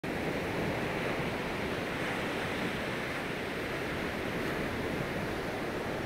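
Sea surf: waves breaking and washing up a sandy beach in a steady rushing noise.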